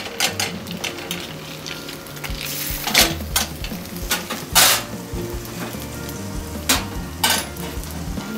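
Butter sizzling in a frying pan where sea bream skin is slowly crisping, with several sharp clinks and knocks of metal utensils and pans.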